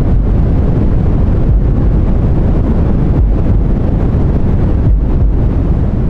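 Loud, steady deep white noise: a dense, even rumbling hiss with most of its weight in the bass and little in the highs.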